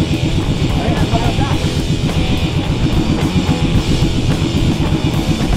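Background rock music with drums and guitar, played at a steady beat.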